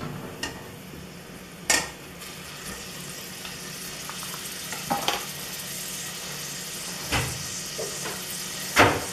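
Processed onion frying in a little oil in a stainless steel pot, a steady sizzle that grows slowly. A stirring utensil knocks against the pot a few times.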